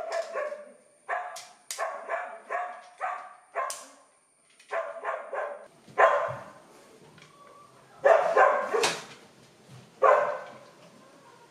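A dog barking repeatedly, in runs of quick barks with short pauses between. A few sharp plastic clicks come from a modular socket plate being handled.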